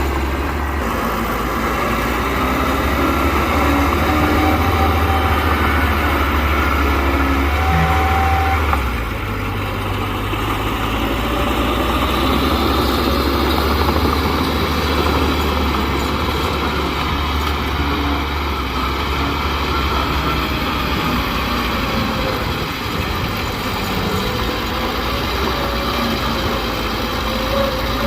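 Diesel engine of a small crawler bulldozer running steadily with a deep rumble; its sound drops a little about nine seconds in.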